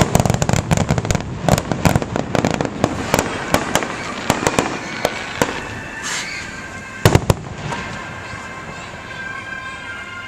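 Aerial fireworks going off: a dense run of rapid sharp pops and bangs starts suddenly and lasts about five seconds, then two loud bangs close together come about seven seconds in before it quietens.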